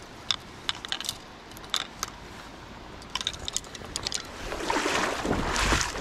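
Light clicks and ticks of a spinning reel and rod being handled as a fishing rod is taken apart. About four and a half seconds in, a louder rustling, crunching noise starts as he steps across the river gravel.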